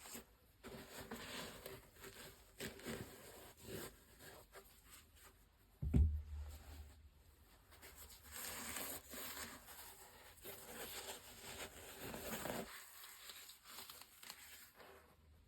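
Paper packaging crinkling and rustling as a sneaker box is unpacked by hand, with one dull thump about six seconds in.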